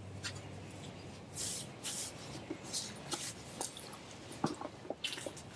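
Dry grass rustling and crackling in irregular bursts as a knife blade on the end of a walking stick is pushed and scraped through it, with a few small clicks.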